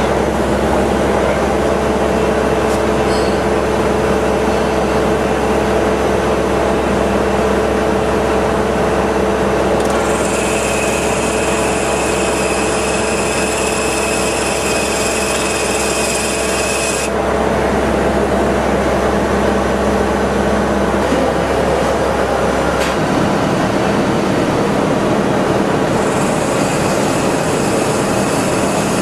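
CNC machine spindle running an inertia-actuated back spotfacing tool (Steiner flywheel-style Autofacer), cutting metal at the back of a bore: steady machining noise. A higher band of sound comes in about ten seconds in, stops some seven seconds later and returns near the end, and a low hum drops out a little after two-thirds of the way through.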